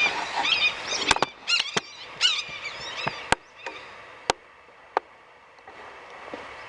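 A hatchet knocking against a white pine log as bark is chipped off: about eight sharp strikes over the first five seconds, further apart toward the end. Chirping bird calls sound over the first two and a half seconds.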